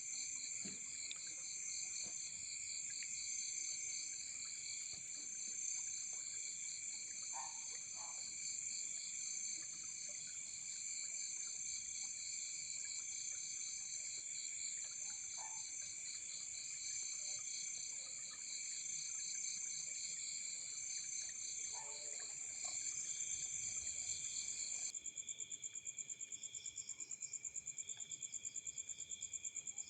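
Night chorus of insects such as crickets: several steady, high trills layered together, each pulsing fast. About 25 seconds in, the chorus changes abruptly to a different rapid pulsing trill, and a few faint short calls sound lower down now and then.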